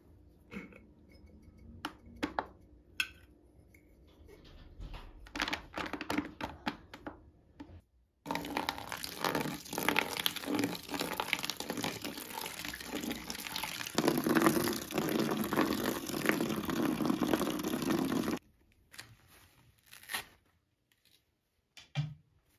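Light knocks and rustles of small items being handled in a plastic bucket, then water poured in a steady stream into the plastic bucket for about ten seconds, starting and stopping abruptly.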